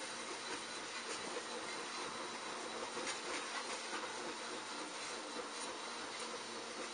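Steady background hiss with a few faint ticks scattered through it, and no distinct event.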